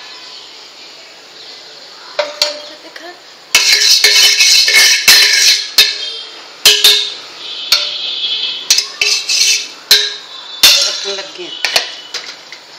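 Aluminium cookware and a metal ladle clattering on a gas stovetop. After a couple of light clicks, a loud stretch of ringing, scraping metal begins about three and a half seconds in, then a run of sharp separate clanks.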